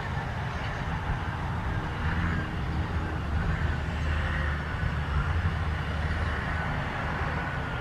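Diesel engines of a Cat 657G wheel tractor-scraper running steadily under load as it moves topsoil: a low, even engine note with a faint higher whine wavering above it.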